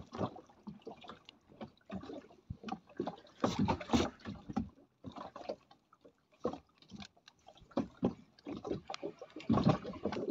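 Water slapping and sloshing against the hull of a small boat in irregular bursts.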